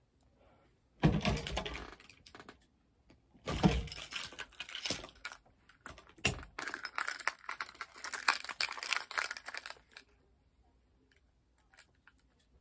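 Bursts of clattering and rustling from small hard objects being handled, from about a second in until about ten seconds in.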